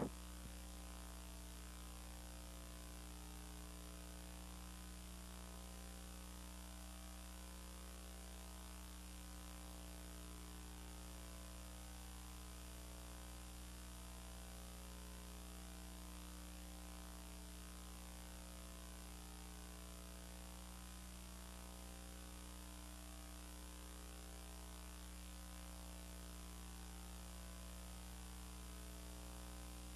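Faint, steady electrical hum with a low hiss on an otherwise silent recording track, unchanging throughout.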